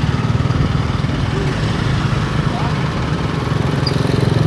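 Heavy engine running steadily at a constant speed with an even, rapid throb, with faint voices over it.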